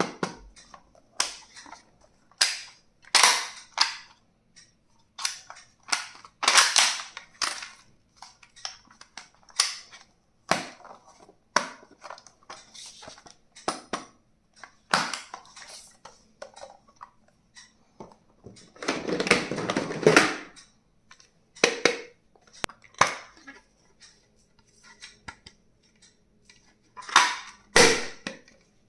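Plastic stationery and packaging being handled: a long, irregular run of sharp clicks and snaps. A longer crinkling rustle comes about twenty seconds in.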